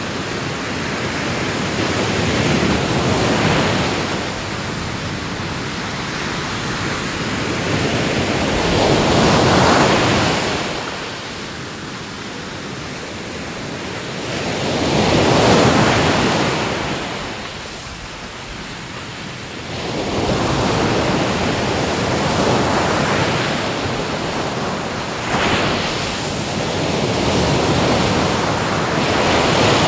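Ocean waves breaking on a shore, the surf swelling and fading about every five or six seconds.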